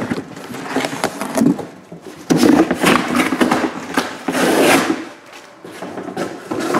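Shrink-wrapped cardboard card boxes being handled and moved about, with irregular knocks and two louder stretches of scraping and rustling.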